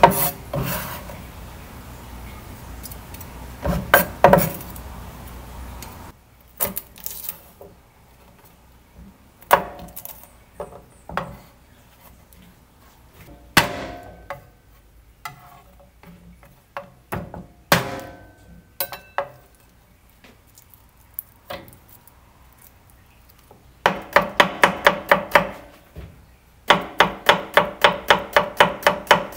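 Chef's knife rapidly chopping garlic cloves on a bamboo cutting board, about five strokes a second, in two runs near the end with a short break between. Before that, scattered single knocks and taps of the knife and food on the board.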